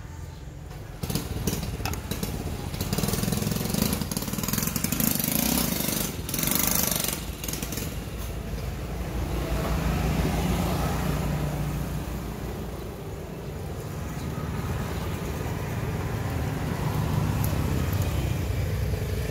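An engine running, starting about a second in, its loudness and pitch rising and falling over many seconds.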